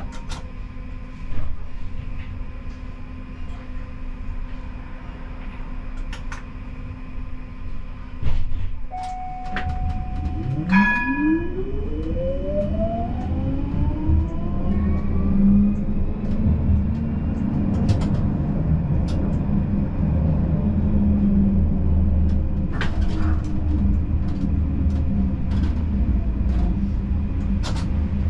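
Siemens Combino tram pulling away and accelerating. About nine seconds in, a held electronic tone sounds, then a quick higher chime. Right after, the traction drive whines in rising pitch as the tram gathers speed, and this gives way to a steady running rumble with scattered sharp clicks.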